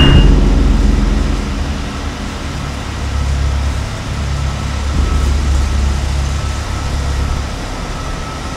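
A low, steady rumbling drone with a faint, thin high tone held over it, swelling and easing slightly in loudness.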